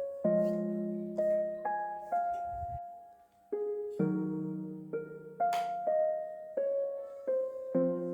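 Background piano music: slow, gentle melody of single struck notes over sustained chords.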